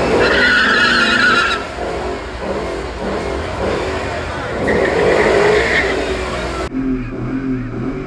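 Drag car tires squealing twice in a burnout, each squeal lasting about a second, over the engine running underneath; the sound changes abruptly near the end.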